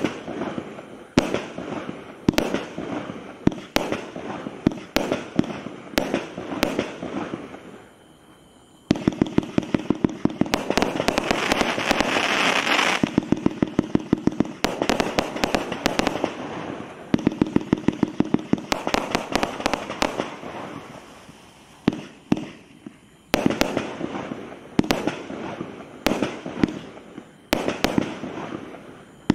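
A 62-shot fan-barrage firework cake firing: a string of loud bangs, each followed by crackle. There is a short pause about eight seconds in, then a fast volley of shots with dense crackling, a thinner spell, and spaced shots again near the end.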